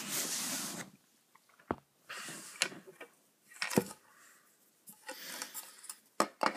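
Handling noise: a burst of rustling at the start, then scattered sharp clicks and knocks with short rustles as the plastic parts of a monitor stand are handled.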